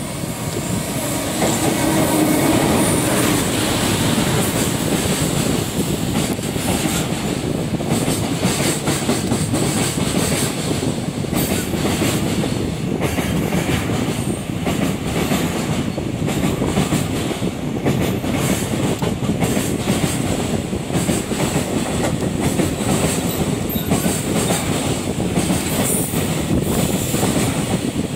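A JR Freight electric locomotive passes close by, then a long container freight train rolls through with steady wheel and rail noise and clatter from the wagons. The sound builds over the first two seconds as the locomotive arrives, then stays loud and even.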